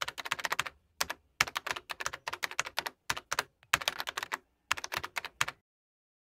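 Computer keyboard typing: rapid keystroke clicks in several quick runs with short pauses between them.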